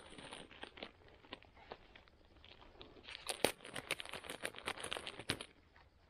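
Hands handling small plastic items close to the microphone: a run of crinkles, rustles and small clicks, denser and louder from about three seconds in until shortly before the end.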